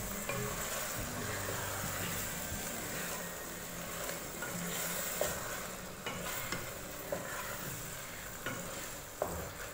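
Wooden spatula stirring and scraping through fried mash (urad) daal in an aluminium pot, with a steady sizzle from the hot oil as just-added yogurt cooks in. A few light clicks of the spatula against the pot.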